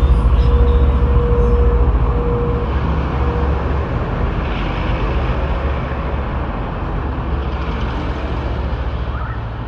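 A motor vehicle's engine rumbling low and steady, with a faint whine that fades out a few seconds in; the sound slowly grows quieter.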